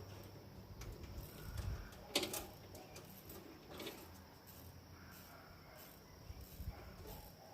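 Faint scattered clicks and knocks over a low rumble, with one sharper click about two seconds in.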